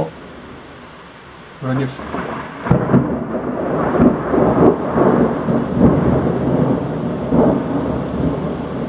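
Thunder in heavy rain: a steady rain hiss, then about two seconds in a sudden loud crack and a long rolling rumble with repeated cracks. It comes from a close lightning strike.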